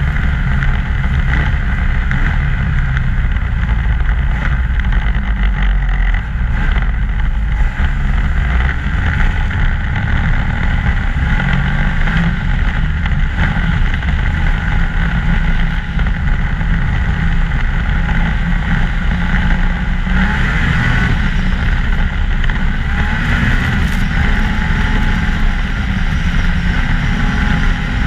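2014 Ski-Doo MXZ 600 snowmobile running at a steady cruise, its engine and track noise holding with little change.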